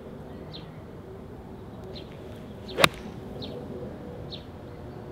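An 8 iron striking a golf ball cleanly off turf: one sharp, crisp click about three seconds in, a solid strike right at the centre of the club face, with the club taking a divot just after the ball.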